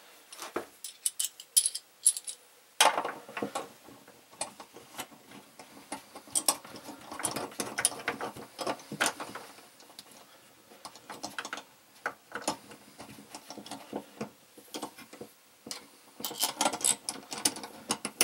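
Small metal parts of a saddle valve clamp — its bracket and screws — clicking and clinking as they are handled and fitted onto a PEX water line. Irregular light clicks, sparse at first and busier near the end.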